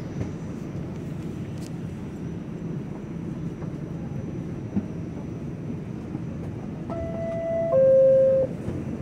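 R46 subway car's two-note door chime, a higher tone then a lower one, each just under a second, sounding about seven seconds in: the warning that the doors are about to close. Underneath, the steady hum of the train standing at the platform.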